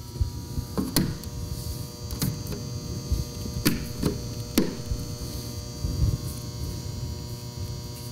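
Steady electrical mains hum, with sharp small clicks and taps (about six in the first five seconds, then a few dull knocks) as small flat-head screws are set into a metal outlet faceplate and turned in.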